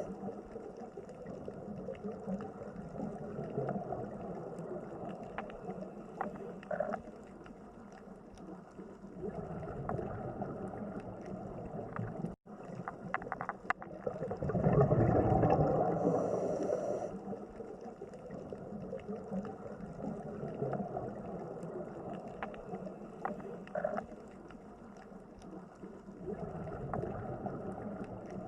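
Aquarium water ambience: a muffled, steady gurgling and bubbling of moving water with a few faint clicks, swelling louder for a couple of seconds about halfway through.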